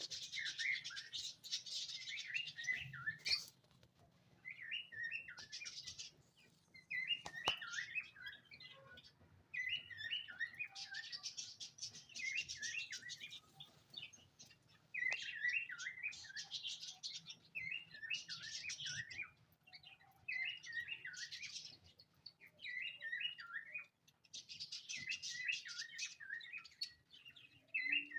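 Small pet birds chirping in bursts, a second or two of quick high chirps and twitters at a time with short pauses in between, over a faint low hum.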